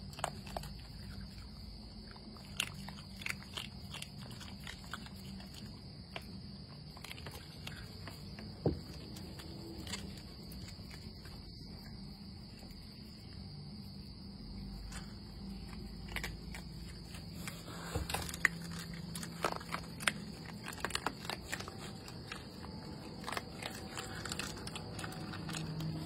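Raccoons eating, with scattered short crunches and chewing clicks, over a steady high-pitched drone.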